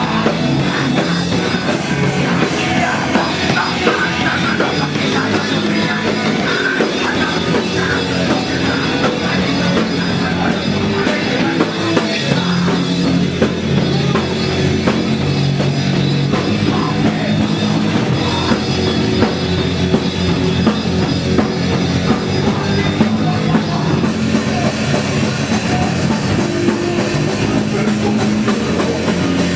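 A live rock band playing loud, with the drum kit and its cymbals up front, heard from right beside the drums.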